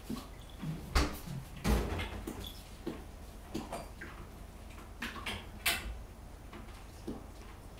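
A run of knocks and thumps, the loudest two about one and two seconds in, followed by lighter clicks and scrapes: cats moving about behind a window curtain.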